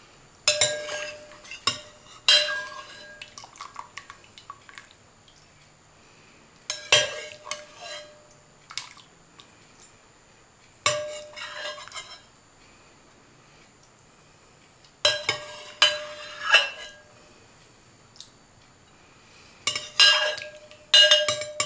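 A metal serving spoon clinking and scraping against a stoneware slow-cooker crock and a serving bowl as cooked carrots are lifted out, in five short clusters of sharp, ringing clinks with quiet pauses between.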